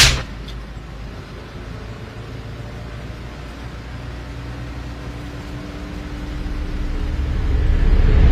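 A bus engine's steady low rumble heard from inside the bus, after one sharp hit right at the start. The sound swells over the last two seconds.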